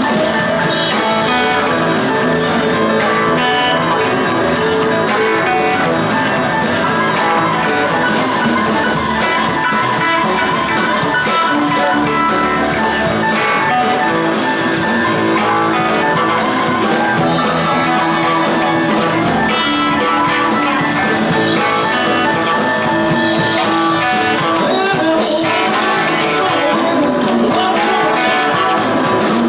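Live rock and roll band playing a number: guitars, drums and keyboard.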